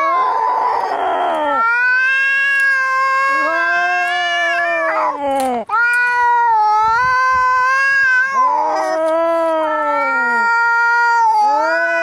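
Cats caterwauling in a fight standoff: long, drawn-out yowls that hold their pitch and then sag at the end, two voices overlapping at different pitches. A harsh, noisy burst comes in the first second or so.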